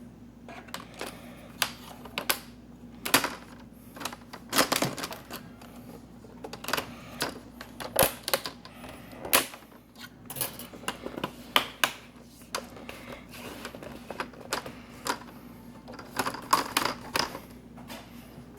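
Plastic trim of a Toshiba Satellite laptop being pressed and clipped back into place: irregular sharp clicks and snaps, some in quick clusters.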